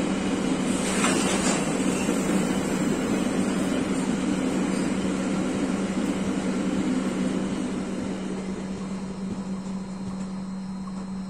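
Freight train of car-carrier wagons loaded with vans rolling past, steel wheels running on the rails. The rolling noise dies away over the last few seconds as the end of the train goes by, leaving a steady hum.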